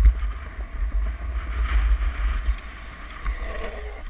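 Wind buffeting a helmet camera's microphone while riding a longboard downhill, over the steady roll of the board's wheels on asphalt. There is a louder jolt right at the start.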